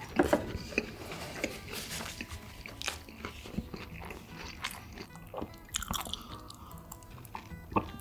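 Close-miked eating: repeated bites and chewing with some crunching, over soft background music.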